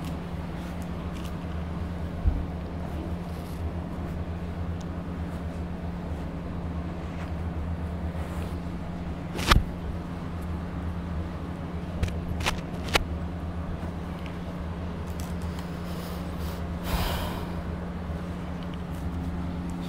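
Steady low hum in the room, with a few sharp clicks and a short hiss near the end.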